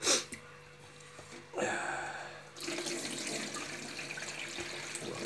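Kitchen tap water running into a pot of rice being rinsed, with splashing as the cloudy rinse water is poured off into the sink. There is a short splash at the very start and a louder splash about a second and a half in, then the water runs on steadily.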